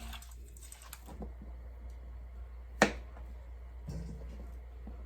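Faint taps and light handling noise over a low steady hum, with one sharp click nearly three seconds in.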